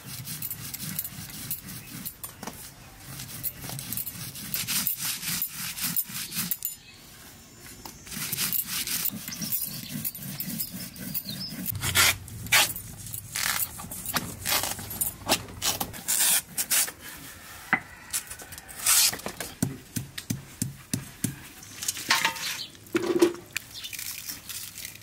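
A hand stone rubbed and rolled over a flat stone grinding slab, crushing dry red chillies, leaves and seeds, for about the first seven seconds. This is followed by a run of irregular sharp crackles and scrapes.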